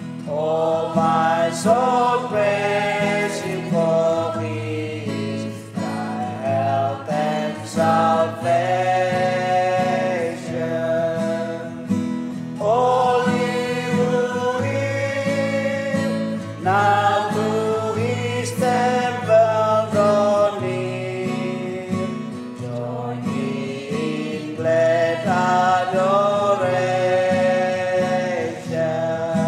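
A small group of men's and women's voices singing a worship song together, with acoustic guitar accompaniment. The singing comes in phrases with long held notes.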